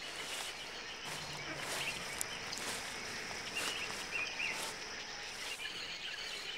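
Quiet outdoor ambience: a steady faint hiss of open air with a few short, faint bird chirps around the middle.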